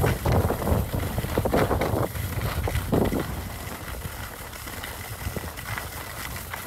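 Skis sliding and scraping over groomed snow on a downhill run, with wind rumbling on the microphone. A few louder scrapes come in the first three seconds, then it settles quieter.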